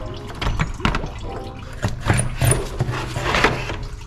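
Irregular knocks, clinks and rattles of the engine-driven cooling fan and water pump pulley being worked loose and lifted out of the engine bay by hand.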